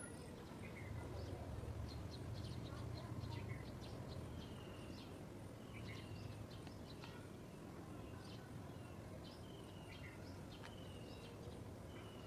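Faint outdoor birdsong: several small birds chirping, with short high notes and a slightly falling whistled note repeated about once a second from about four seconds in. Under it runs a low steady rumble, stronger in the first few seconds.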